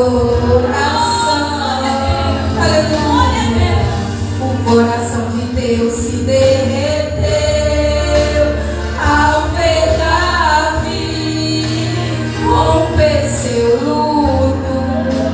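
A church vocal group singing a Portuguese-language gospel song with instrumental backing and a steady bass underneath.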